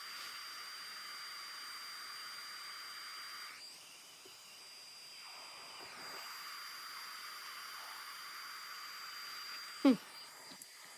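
Hot-air rework wand of an X-Tronic 7040 Pro-X soldering station blowing a steady hiss with a thin high whine, the air turned up high. The hiss eases in the middle for a couple of seconds, then comes back. A sharp knock near the end, followed by a few small clicks.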